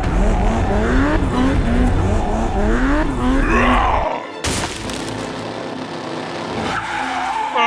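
Toy-vehicle sound effects: an engine rumble carrying a pitch that rises and falls over and over, with a sudden sharp hit about four and a half seconds in, after which a lighter, quieter sound runs on.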